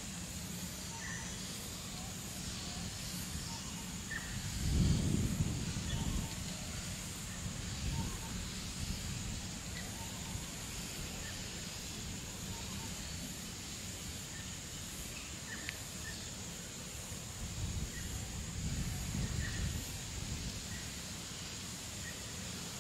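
Woodland ambience: a steady low rumble from Darwin Hospital that sounds like a distant jet, under a breeze that gusts twice, about five seconds in and again near the end. Scattered faint bird chirps and a steady high hiss run through it.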